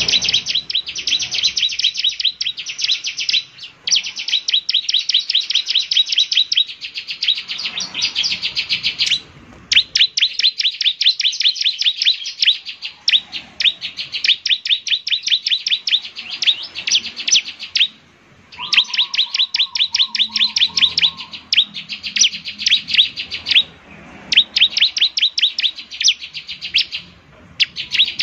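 Bar-winged prinia (ciblek) singing a loud, rapid chattering song of sharp, high chirps. The chirps come in dense bursts of a few seconds each, with brief pauses between them.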